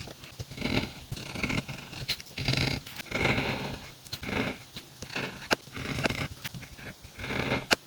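Calligraphy pen scratching across paper in a run of separate strokes, about one a second, with small sharp clicks between strokes.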